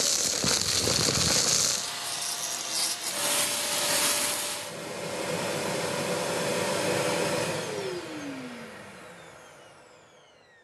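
Electric power tool working on wood, with a scraping, hissing sound at first and then a steady motor note. About three-quarters of the way through it is switched off and winds down, its pitch falling as it fades away.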